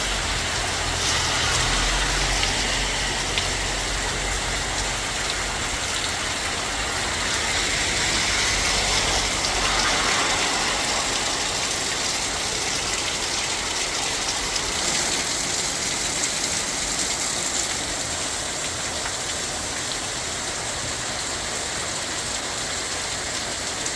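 Heavy rain pouring down steadily with runoff water rushing, hissing evenly throughout. A low rumble sits under it for the first ten seconds or so, then drops away.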